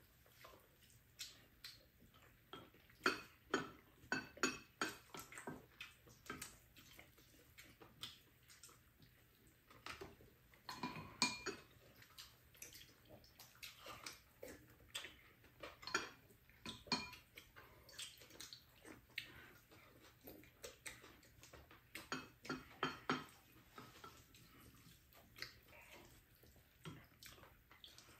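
Eating at a table: chopsticks and spoons clicking and scraping against ceramic bowls and a frying pan, with chewing and mouth sounds, in scattered bursts of small clicks.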